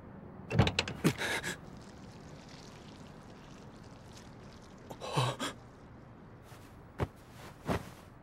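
Sound effects in an animated scene: a car door opening and shutting in a quick cluster of knocks, a man's short grunt about five seconds in, and two soft knocks near the end.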